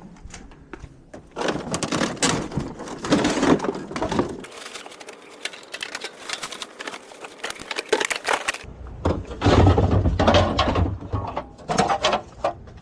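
Clattering and knocking of hard junk being handled and tossed, in several short edited clips, with a low hum under part of it.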